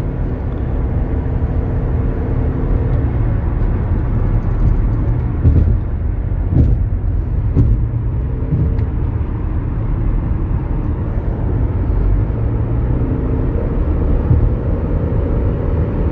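Steady road and tyre rumble with engine hum inside a 2011 GMC Terrain's cabin while cruising at highway speed, with a few light knocks near the middle.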